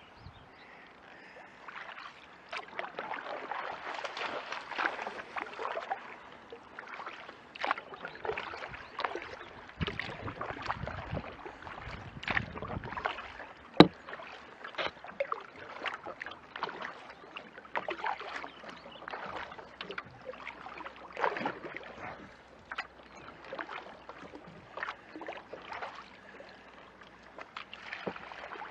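Kayak paddling: the blades dip and splash in the water and drip between strokes, in uneven surges roughly once a second. A single sharp knock about halfway through is the loudest sound.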